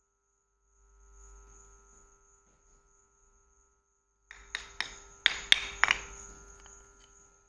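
White slate blocks clacking together as a block is set down onto a heap of slate blocks, about eight sharp knocks in under two seconds.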